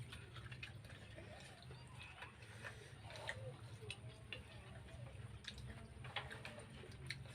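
Close-up eating sounds: wet smacking and many small irregular clicks as someone chews and gnaws on bones from spicy seblak.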